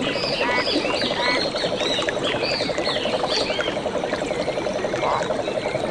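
Frogs calling in a chorus: a steady, rapidly pulsing trill with repeated croaks over it, while birds chirp in quick arching notes for the first few seconds.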